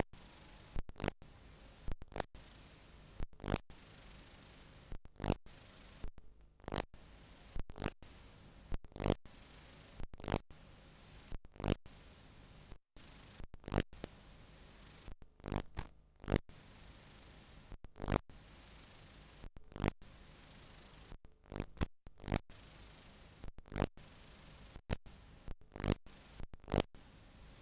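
Videotape playback noise over a blank stretch of tape: a steady hiss broken by irregular crackles and pops, about one or two a second, with a brief dropout to silence near the middle.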